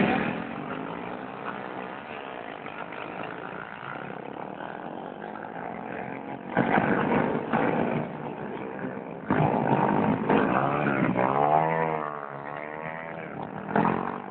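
Small-capacity racing motorcycles revving hard as they pass at speed, a high buzzing engine note. The loudest pass-bys come about six and nine seconds in, their pitch sweeping as each bike goes by.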